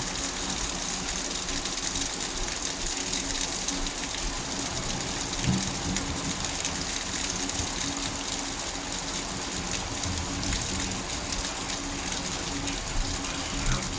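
Steady rain falling during a thunderstorm, an even hiss.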